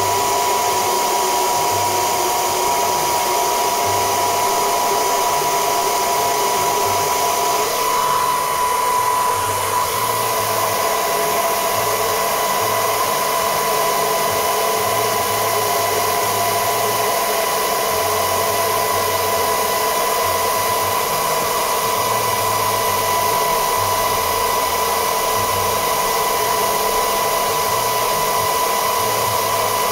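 Small handheld hair dryer running steadily, its motor whine and air hiss unbroken, with a slight change in tone about eight seconds in. It is blowing warm air on a phone's back panel to soften the adhesive.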